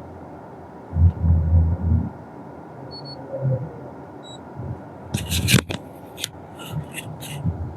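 Handling noises around an OBD diagnostic scan tool: a dull low rumbling bump about a second in, two short high electronic beeps a little over a second apart, then a run of sharp clicks and rustles near the end.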